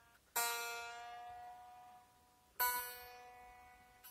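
The B string of a Squier Stratocaster SE electric guitar plucked twice, each note ringing and slowly fading. It is being checked for fret buzz while the string height is set.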